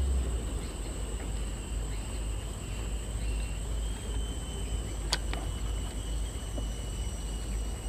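Steady high-pitched insect drone from the riverside vegetation, two thin unbroken tones over a low rumble, with one sharp click about five seconds in.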